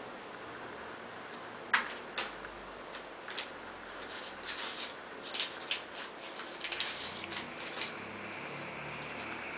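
Groenendael puppy's claws clicking on a tile floor as it moves about: a run of irregular sharp clicks starting about two seconds in and stopping shortly before the end.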